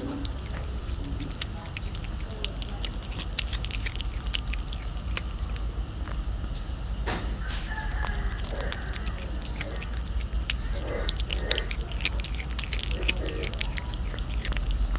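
Cat chewing and biting raw fish flesh close to the microphone: a long run of irregular short clicks and smacks, thickest in the second half, over a steady low hum.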